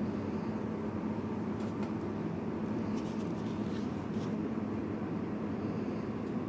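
Steady low droning background noise, with a few faint, brief scratchy sounds near the middle.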